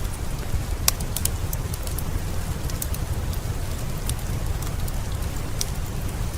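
Heavy rain as a steady, dense low rush, mixed with a crackling wood fire: scattered sharp pops and snaps, the loudest about a second in.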